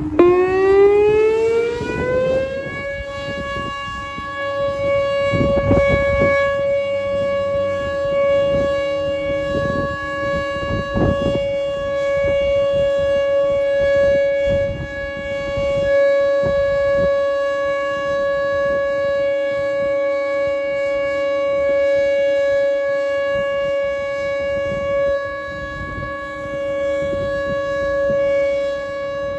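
Outdoor tornado warning siren winding up, its pitch rising for about two and a half seconds, then holding a steady wail. A second siren holds a lower steady tone underneath.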